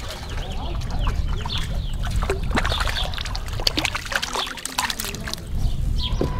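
A crappie hooked and reeled in on a light spinning rod: a quick run of clicks, and splashes as the fish thrashes at the surface and is swung up out of the water. Many short high chirps run through it.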